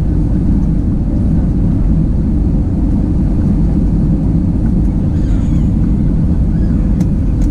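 Steady low rumble of engine and airflow noise inside the cabin of an Airbus A320-200 during its landing, with one sharp click near the end.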